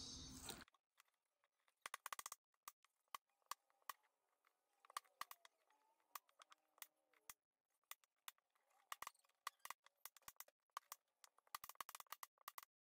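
Near silence broken by many faint, sharp, irregular clicks and ticks, with a few faint chirps about halfway through.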